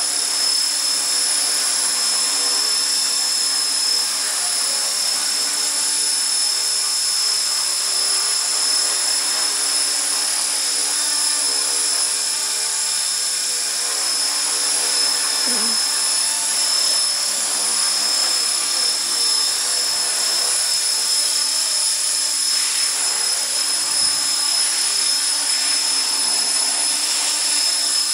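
HK450 electric 450-size radio-controlled helicopter hovering: a steady high whine from its electric motor and drive gears over the whir of the main and tail rotors, holding an even pitch.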